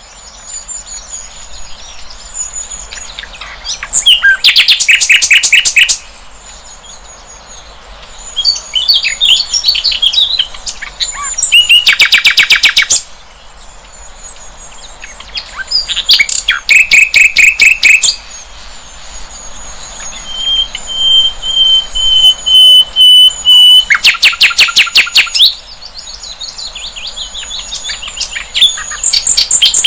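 Sikatan londo, a flycatcher, singing loud bursts of rapid repeated notes, five phrases a few seconds apart, with one long steady whistle about two-thirds through. A thin high steady tone runs behind the song.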